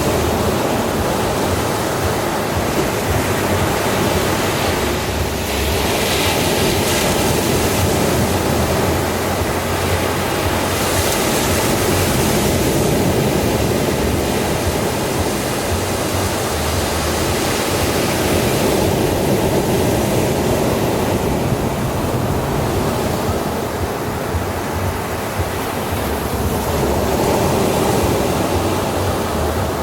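Ocean waves breaking on a beach, a continuous rushing surf that swells and eases every several seconds.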